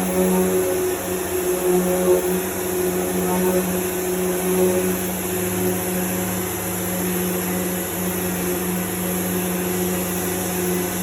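Dual-action (DA) sander running steadily, its 600-grit paper on a hard pad working over primer surfacer on a car body panel: a steady hum with a hiss.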